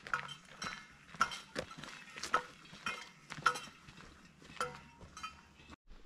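Footsteps walking along a dirt forest trail, about two steps a second, each step with a short ringing clink of carried gear. The sound breaks off abruptly near the end.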